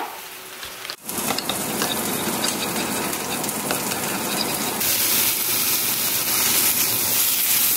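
Chicken breasts sizzling as they pan-sear in a hot nonstick skillet, a steady frying hiss with a few light clicks; the sizzle grows louder about five seconds in.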